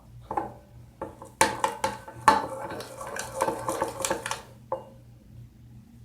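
Utensil clinking and scraping against a bowl, a quick run of knocks from about a second and a half in to about four and a half seconds, typical of stirring a mixture.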